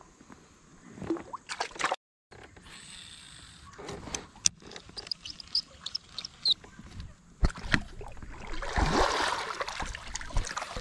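Water splashing and dripping around a plastic fishing kayak on a river, with scattered knocks and small ticks from handling the fish and tackle, and a louder wash of water near the end. The sound cuts out completely for a moment about two seconds in.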